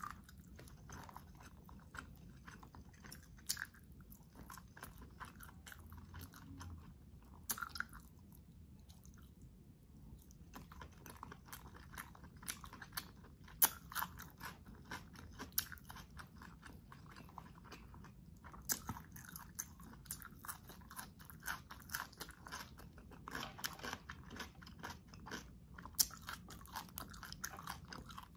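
Close-miked chewing and biting, with many short crunches and wet mouth clicks.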